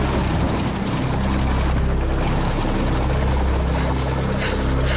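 Steady low drone of a propeller aircraft's piston engine, with a couple of short crackles near the end.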